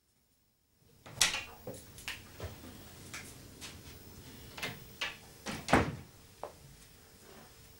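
A shop's glazed front door opening and shutting amid a string of sharp clicks and knocks. The loudest knocks come about a second in and again near six seconds.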